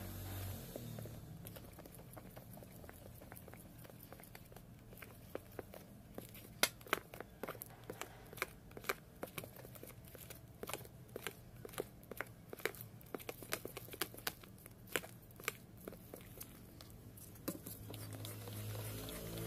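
Metal spoon stirring shaving foam into a slime mixture in a plastic cup: a long run of sharp, irregular clicks and small wet pops, several a second.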